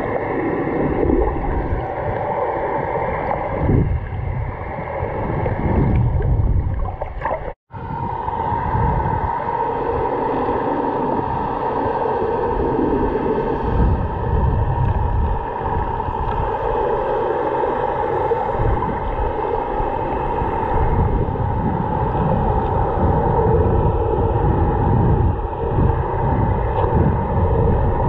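Muffled underwater noise heard through a camera's waterproof housing: water rushing and sloshing over the camera, with a steady hum running through it. The sound cuts out completely for a moment about seven and a half seconds in.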